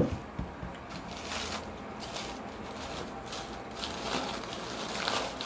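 A drink can set down on a table with a sharp knock, then paper food wrappers rustling and crinkling in short, irregular rustles every second or so.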